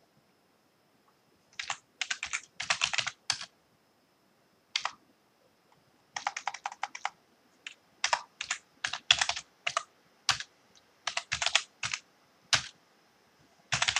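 Typing on a computer keyboard: runs of quick keystrokes starting about a second and a half in, broken by short pauses.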